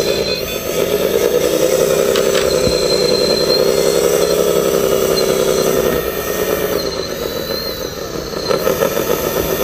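Steady engine drone with a low pitched hum. It weakens about six seconds in and comes back strongly near the end.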